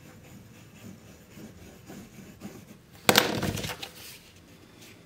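Stainless steel Parker Jotter ballpoint pen scratching lightly across a small sheet of paper as it writes. About three seconds in, the paper sheet is picked up and handled with a loud, brief rustle.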